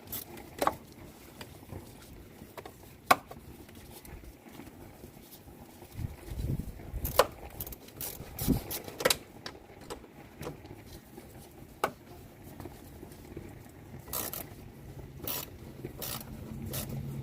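Scattered sharp metallic clicks and clinks of hand tools and parts, with a few dull knocks, as an air cleaner is refitted under a truck's hood. A low steady hum comes in near the end.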